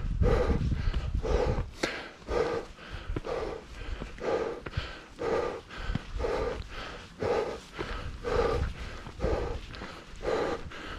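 A hiker breathing hard, about one breath a second, from the exertion of climbing a steep rocky trail. A low rumble on the microphone in the first second or two.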